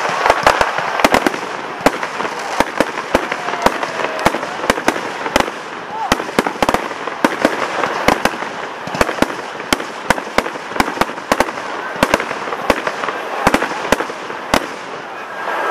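Aerial fireworks bursting in a rapid, uneven barrage of sharp bangs and cracks, about two to three a second, with no pause.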